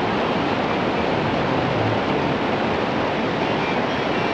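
Steady rush of churning water, an even noise with no breaks.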